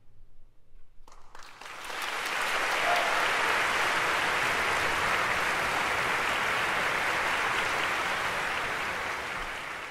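Audience applauding, swelling in about a second in and then holding steady, easing off slightly near the end.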